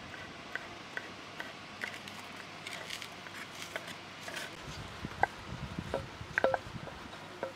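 Kitchen knife chopping cucumber on a wooden cutting board in light, regular taps, about two a second. Around five seconds in, the diced cucumber is scraped off the board with the knife and drops into a glass bowl, with a few sharper clicks.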